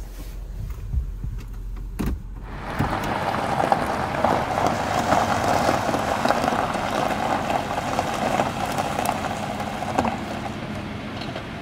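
A campervan's engine running. For the first two seconds it is a low rumble heard from inside the cab, then comes a click. From about two and a half seconds in, the van is heard from outside as a steady rushing engine noise.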